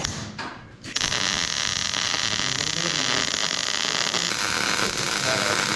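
MIG welding arc on a steel frame plate. The arc strikes about a second in and then runs with a steady hiss.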